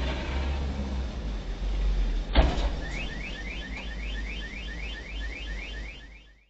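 A steady low hum with a single sharp thump about two and a half seconds in. Then a car alarm starts chirping in fast rising notes, about five a second, and keeps going until the sound cuts off.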